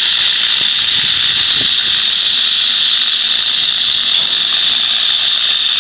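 Oxy-fuel gas cutting torch on a track-mounted automatic cutting machine, hissing loudly and steadily as it cuts steel.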